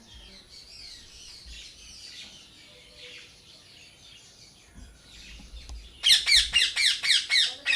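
Faint background birdsong twittering, then about six seconds in a parrot breaks into a loud run of quick chirps, each falling sharply in pitch, about five a second.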